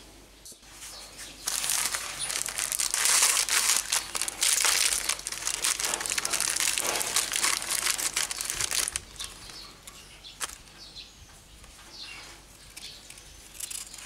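Oreo cookie packet's plastic wrapper crinkling loudly for several seconds as it is cut and torn open. Then quieter rustling and a few light clicks as a cookie is taken out and pulled apart.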